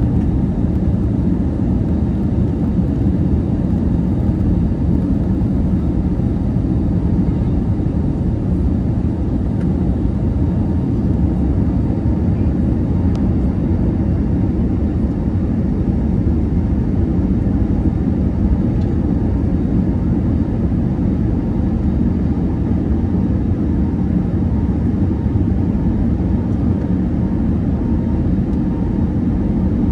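Steady cabin noise of an Airbus A321neo airliner in cruise: a low, even rush of airflow and engine noise heard from inside the cabin.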